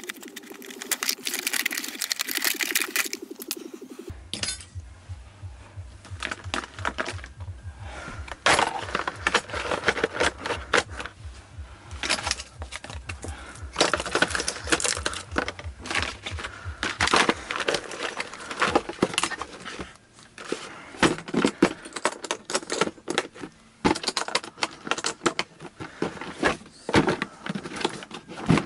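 Repeated clicks, knocks and rattles of hard plastic as a black Parkside blow-molded tool case is handled, a Parkside oscillating multi-tool is set into it and the lid is closed. The first few seconds hold a different, buzzing sound.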